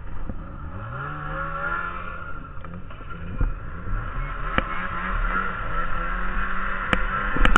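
Snowmobile engine revving up as the sled pulls away, its pitch rising over the first couple of seconds, then running steadily at speed over a steady hiss. A few sharp clicks come through, the loudest near the end.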